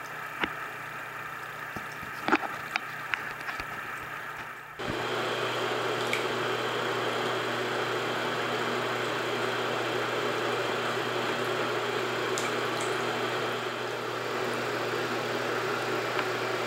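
A few small splashes and drips of bathwater around a wet cat held in a tub, over a steady hum. About five seconds in, a louder, steady rushing noise takes over.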